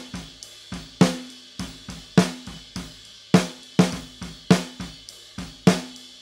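Live drum kit heard through the snare drum's close microphone: a steady beat of snare hits, each ringing briefly, with hi-hat, cymbals and bass drum leaking into the mic. The raw snare sounds not crisp enough and lacks punch, the kind of take that drum-replacement software is used to fix.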